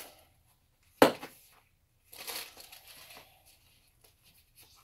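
A single sharp knock about a second in, as a hard object is set down on a table, followed by about a second of rustling as items are handled.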